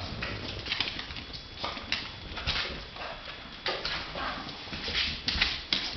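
Dog's claws clicking and scrabbling on a hardwood floor in irregular quick strokes as it moves about playing with a toy.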